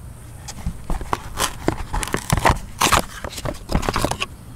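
A cardboard Elring parts box and the paper wrapper inside it crinkling and rustling as a new oil seal is unpacked: a run of irregular crackles, busiest in the middle.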